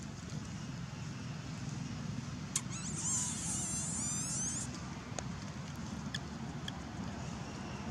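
Outdoor ambience: a steady low rumble with faint scattered ticks and rustles, and a brief high-pitched warbling call about three seconds in that lasts under two seconds.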